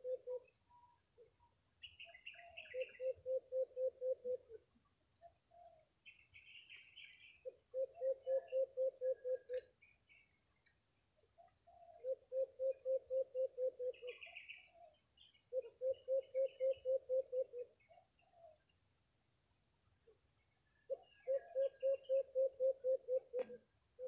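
White-eared brown dove calling: five phrases of quick, low hoots, about ten to a phrase at some five a second, spaced a few seconds apart. A steady high insect whine runs underneath, with a few short chirps from other birds.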